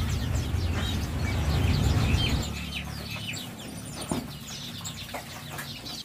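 Many small caged birds chirping at once, a dense overlapping chatter of short high calls. A low rumble sits under the chirping for the first two seconds or so, then drops away.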